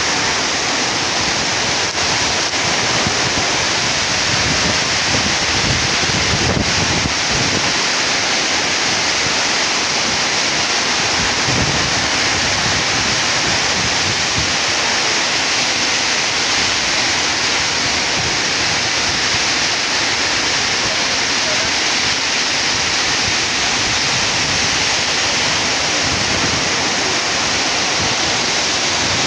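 Heavy rain pouring down in a storm, a steady dense hiss, with gusts of wind buffeting the microphone now and then.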